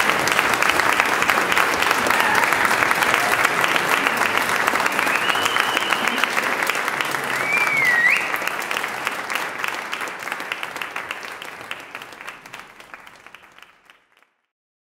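Audience clapping, with a whistle from the crowd partway through. The clapping then dies away over the last several seconds.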